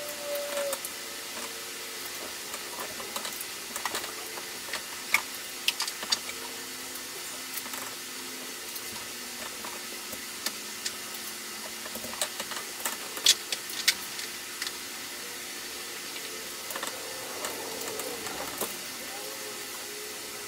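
Scattered sharp clicks and light metallic taps from flexible braided stainless-steel water-heater supply hoses and their fittings being handled and moved, over a steady hiss.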